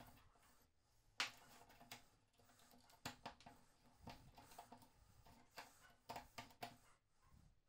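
Faint scattered clicks and light metal knocks from hands handling a rusty breast drill's chuck and drill bit, with one sharper click a little over a second in.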